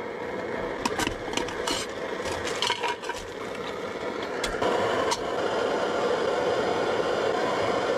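Scraping and rubbing sounds with a few sharp clicks, then a steadier hiss from about halfway through.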